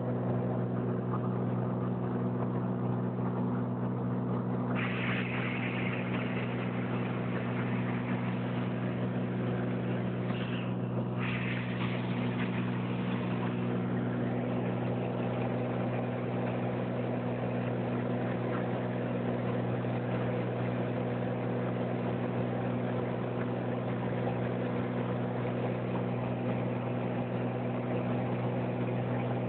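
Small plane's engine and propeller droning steadily, heard from inside the cabin: an even low hum with a hiss above it.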